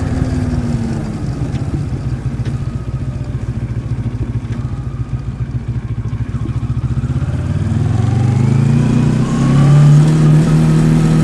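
2023 Moto Morini X-Cape 650's parallel-twin engine running at low revs with a steady pulse for several seconds, then accelerating with a rising pitch and shifting up near the end.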